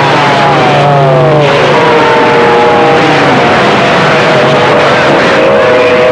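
CB radio receiver putting out loud static hiss with a few whistling tones on top. The tones slide down in pitch over the first two seconds or so, then hold steady to the end.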